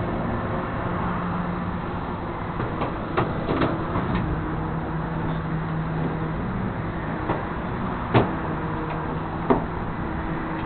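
Flatbed tow truck's engine running steadily, with a few sharp knocks or clanks over it, the loudest about eight seconds in.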